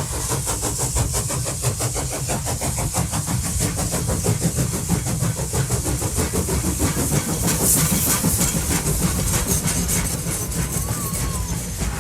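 Steam locomotive working hard, with rapid, even exhaust beats over a constant hiss of steam.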